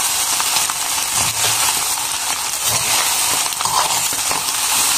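Fried rice sizzling in a wok as it is stir-fried, with a metal spoon scraping and clicking against the pan as it is stirred.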